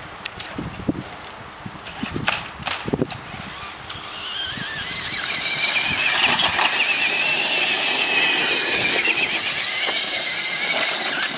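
Electric motor and gears of a battery-powered remote-control truck whining as it drives, after a few clicks and knocks. The whine rises in pitch and grows louder from about four seconds in, then holds, wavering, until near the end.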